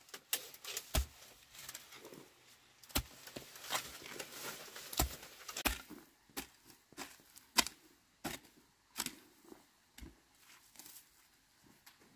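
Scattered sharp clicks and knocks at an irregular pace, about one or two a second, with light rustling between them, as of objects being handled.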